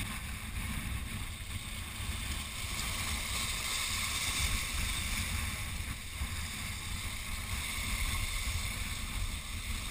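Wind buffeting an outdoor camera microphone in a steady low rumble, with surf washing over jetty rocks.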